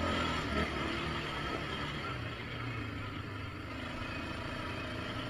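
ATV engine running steadily, a low hum whose pitch steps up slightly about two seconds in.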